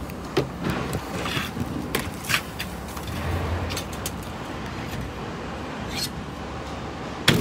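Scattered knocks and scuffs of a wooden board and footsteps on a box truck's cargo floor as junk is unloaded, with one sharp bang near the end, over a steady outdoor background noise.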